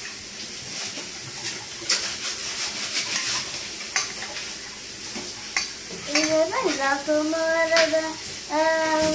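A metal fork stirring and clinking in a stainless steel bowl of spaghetti, a few sharp clicks of metal on metal. From about six seconds in a voice hums a few held notes.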